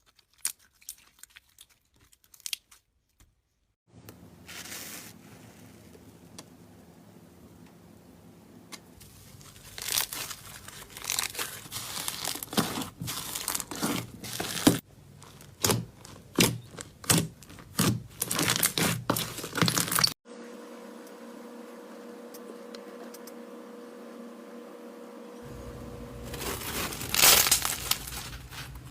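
Slime being squeezed and pressed by hand, making crinkling, crackling and sharp popping sounds over a low background hum. The pops come thick and fast through the middle stretch.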